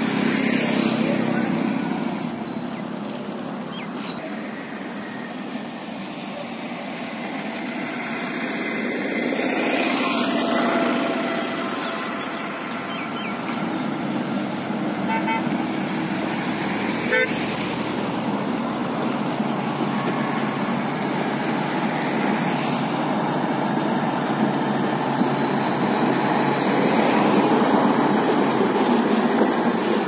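SANY motor grader's diesel engine running as it levels a crushed-stone road base. The sound swells twice, about a third of the way in and again near the end as the machine comes close.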